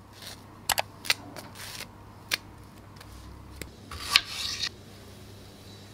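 Kitchen prep sounds: a butter knife scraping peanut butter across a crisp rice cake, then a knife slicing strawberries down onto a wooden cutting board. It comes as a string of short, sharp clicks and scrapes, the loudest about four seconds in.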